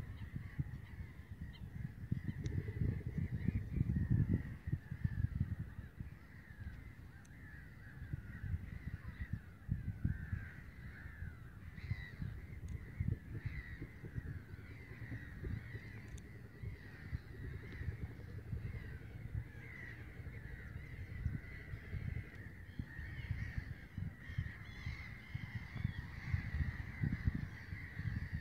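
A colony of black-headed gulls calling, many harsh overlapping calls with no break. Wind buffets the microphone throughout, strongest a few seconds in.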